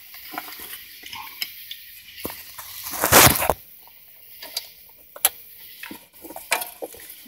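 Irregular metallic clicks and clinks of a hand wrench or socket working the bolts of an engine's oil pickup tube, with a short loud rush of noise about three seconds in.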